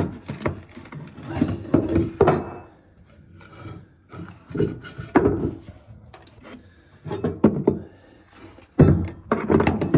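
Wooden floorboard being worked loose and handled: irregular knocks, thunks and scraping of wood in bursts, with quieter gaps between them.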